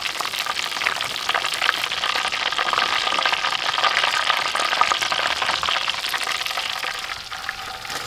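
Coated chicken pieces deep-frying in a wok of hot oil: a steady, dense sizzle full of fine crackles from the bubbling oil, easing slightly near the end.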